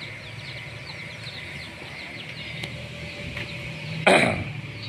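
Small birds chirping over and over, with a steady low hum beneath. About four seconds in there is one brief, loud call.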